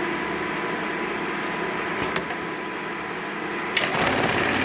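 Juki AMS-210EN computer-controlled pattern sewing machine humming at rest, with two light clicks about two seconds in. Near the end a sharp clack, and the machine starts sewing with a louder, dense rattle.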